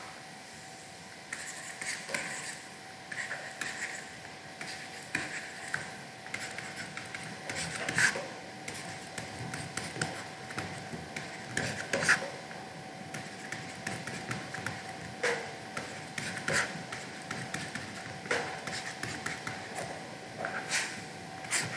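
Stylus tapping and scratching on a pen tablet during handwriting: irregular light clicks with a couple of sharper taps, over a faint steady hum.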